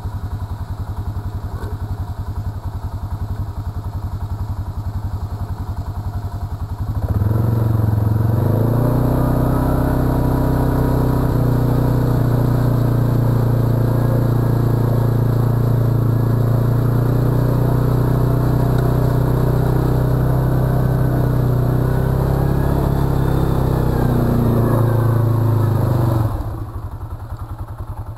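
Arctic Cat 700 ATV engine running low, then revved hard about seven seconds in and held at steady high revs for about twenty seconds before dropping back. The quad barely moves while the engine is held high: its wheels are spinning in deep, muddy water.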